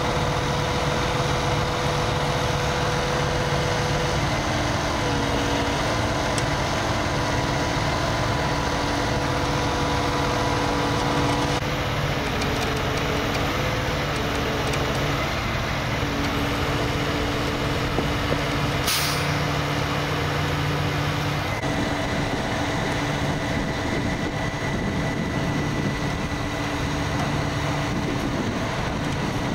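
Heavy tow truck's engine running steadily with a deep, even drone, powering the winch that is pulling a pickup out of the water on its cable.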